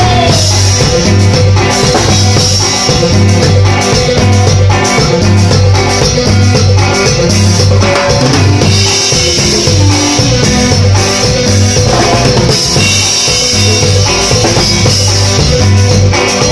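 Live band playing dance music. A drum kit and electric bass drive a steady, even beat, with keyboard over them, loud through the stage sound system.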